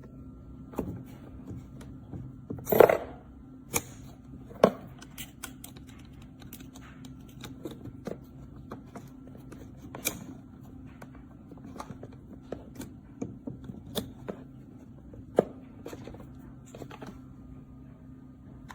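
Scattered sharp clicks and light knocks of objects being handled, with a louder clatter about three seconds in, over a low steady hum.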